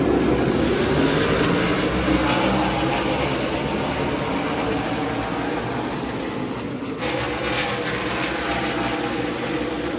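A pack of NASCAR Xfinity Series stock cars, their V8 engines running hard, racing past on the straight as one dense, continuous engine sound. About seven seconds in the sound breaks briefly, then picks up again with cars still passing.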